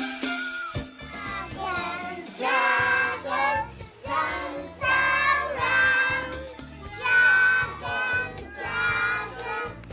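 Children's voices singing a song with music, in phrases a second or two long. The singing comes in about a second in.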